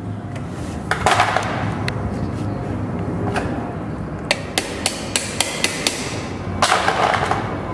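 Hammer blows on metal: a couple of heavy strikes, then a quick run of about seven sharp light taps, then more heavy strikes near the end. This is a motorcycle's old drive chain being knocked apart at its joining link with a screwdriver and hammer, with no chain breaker tool.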